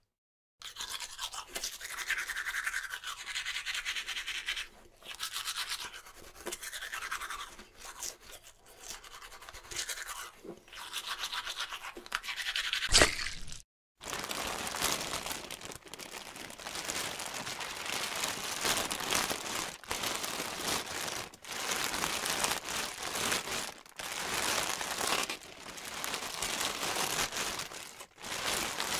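Scratchy rubbing of wooden intarsia pieces worked by hand, in uneven bursts, with a sharp knock about 13 seconds in just before the sound drops out for a moment.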